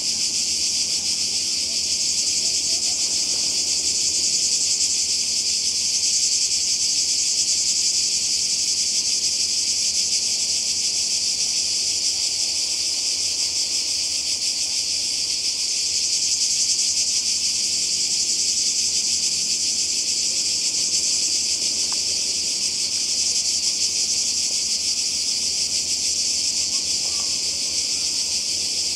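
A dense chorus of cicadas, a steady high-pitched buzzing without a break.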